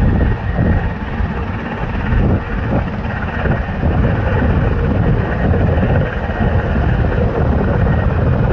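Boeing 767-300ER jet engines at takeoff power, a steady loud rumble with a deep low end.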